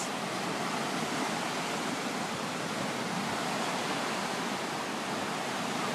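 Flooded, storm-swollen river rushing past in churning whitewater: a steady, even rush of water.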